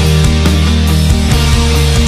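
Heavy metal song playing loud: a dense band sound with low held chords and many quick sharp hits.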